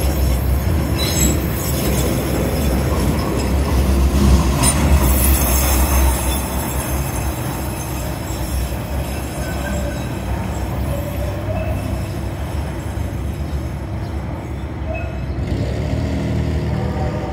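Siemens light rail trains running on curved street track. There is a strong low rumble as one train passes close for the first six seconds, then a quieter running sound as a second train comes through, with thin high-pitched wheel squeal from the rails until near the end.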